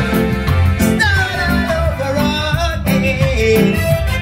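Live band playing a reggae song: electric guitar, drum kit and keyboards, with a steady beat and a melodic line bending over the top.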